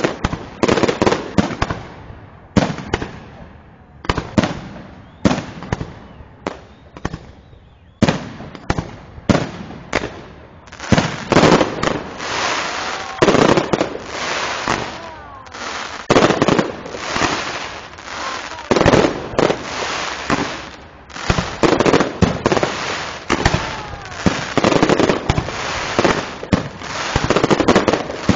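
Aerial fireworks display: shells bursting overhead in quick succession with sharp bangs and crackling. The bangs thin out a few seconds in, then from about eight seconds on they come as a dense, nearly continuous barrage.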